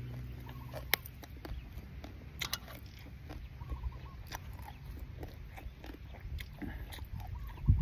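A person chewing a mouthful of food with raw vegetables, making scattered wet clicks and crunchy crackles, with a sharp click about a second in and a low thump near the end.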